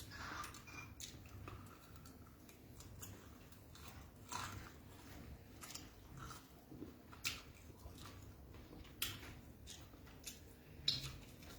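A person chewing food, beans and fried plantain, close to the microphone, with faint, irregular wet mouth clicks and smacks.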